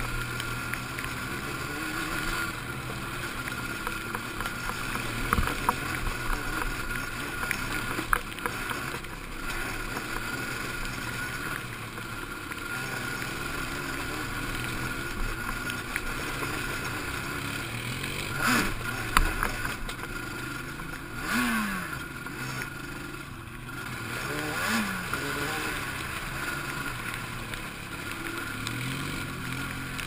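Quad (ATV) engine running under way on a trail. The revs drop a couple of times in the second half and pick up again near the end.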